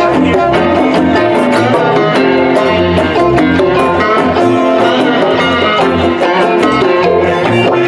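Live band playing with guitars to the fore over electric bass and a conga, on a steady beat.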